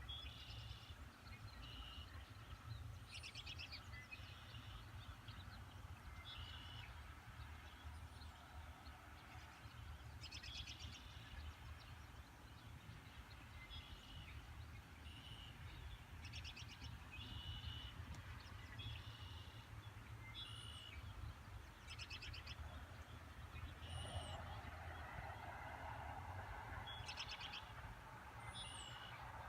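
Wild birds calling, faint: a short, rapidly pulsed call repeated every second or two, with a few thin high downslurred notes between, over a steady low rumble.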